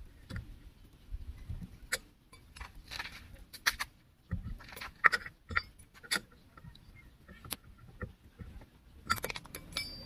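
Lug wrench clinking against a car wheel's lug nuts as they are unscrewed. Irregular sharp metallic clicks and chinks, the loudest about five seconds in.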